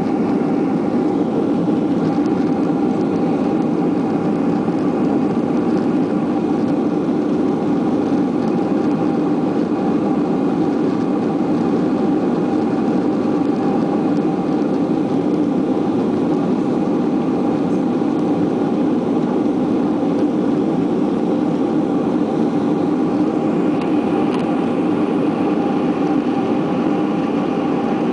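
Inside the cabin of a Boeing jetliner climbing after takeoff, the engines and airflow make a steady rushing noise. Constant hum tones run over it, and the level stays the same throughout.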